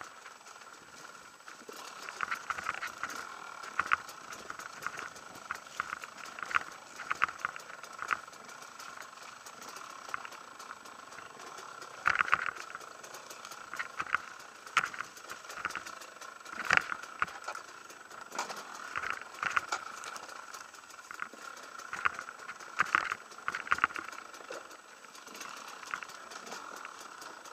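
Husaberg TE 300 two-stroke enduro motorcycle engine running over rough rocky ground, a steady drone broken by frequent knocks and rattles from the bumps.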